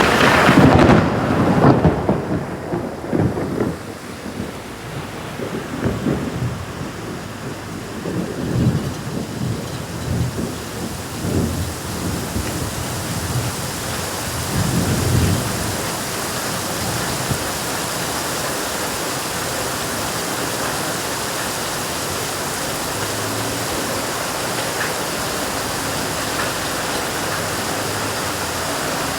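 Thunder in a heavy rainstorm: a loud crack right at the start, then rolling rumbles that come and go over the next fifteen seconds. After that the rain carries on alone as a steady, even hiss.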